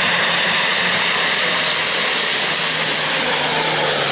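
Off-road 4x4's engine running steadily under load as it crawls over loose rock, a constant drone with a hiss over it; the engine note drops slightly about three seconds in.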